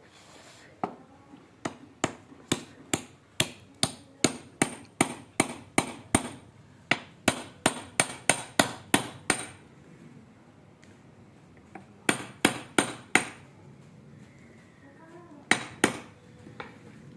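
Hammer blows struck in a steady run of about twenty, two to three a second, each with a short ringing tail. After a pause comes a quick group of about five, then two more near the end.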